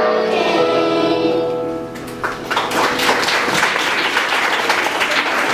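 Children's choir singing, which stops about two seconds in, followed by audience applause.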